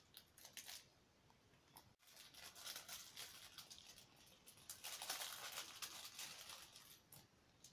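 Faint crinkling and rustling of a small plastic packaging bag as it is handled and opened by hand. It comes in short, scratchy bursts and is loudest about five seconds in.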